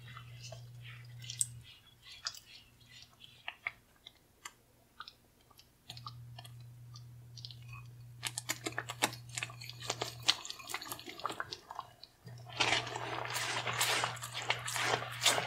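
Thick cream sauce simmering in a pan, its bubbles popping in scattered soft clicks that come thicker after about eight seconds. Near the end, a utensil stirs grated cheese through the sauce in a loud, dense, wet squishing.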